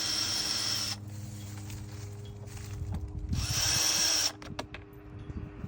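Handheld power drill/driver spinning in two bursts of about a second each, about three seconds apart, with a high whine.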